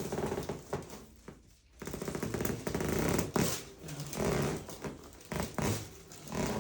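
Chiropractic thoracic (mid-back) spinal adjustment: a quick run of sharp joint cracks and pops, the loudest about halfway through.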